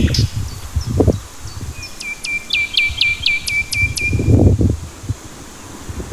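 A songbird singing a quick run of about eight downward-sweeping high notes, about two to four seconds in. Under it, uneven low rumbling noise comes and goes, loudest about a second in and again after four seconds.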